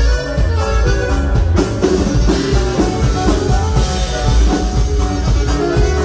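Live norteño band playing an instrumental passage: saxophone and button accordion carry the melody over guitars, bass and a steady drum-kit beat.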